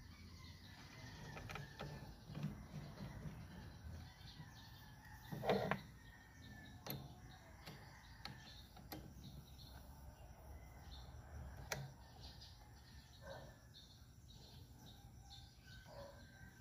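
Faint outdoor background with birds chirping, broken by scattered small clicks and knocks from an Allen key and hands working the disc brake caliper's mounting bolts; the loudest knock comes about five and a half seconds in.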